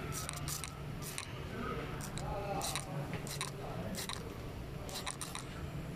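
Soapy water foaming and crackling on a leaking car A/C condenser as refrigerant escapes through it: irregular wet pops and crackles, several a second, over a steady low hum. The heavy foaming marks a strong refrigerant leak in the condenser.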